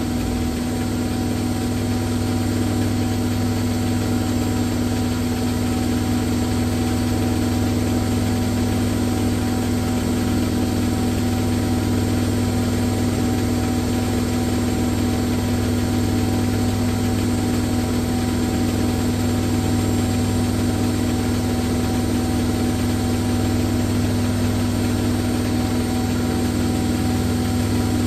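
Hoover Nextra top-loading washing machine on a high-speed spin, the drum and motor running with a steady, even hum.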